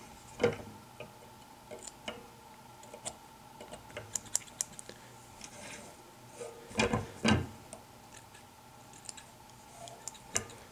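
Quiet handling sounds of fly tying: scattered small clicks and snips as scissors trim the synthetic fibres of a streamer fly held in a vise. A few louder knocks come about half a second in and twice around seven seconds.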